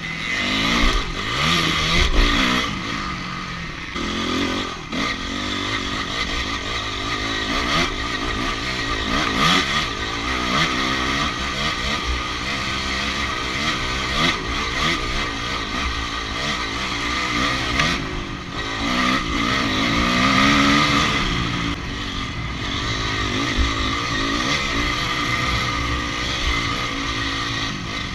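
Enduro motorcycle engine heard from the bike's onboard camera, revving up and falling back over and over as the rider works the throttle through a dirt test, with occasional knocks from the bike over bumps.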